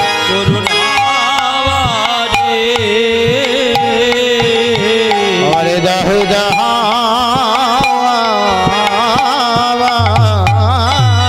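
Bengali devotional kirtan: a voice sings a wavering, heavily ornamented melody over steady hand-drum strokes and sustained accompanying tones.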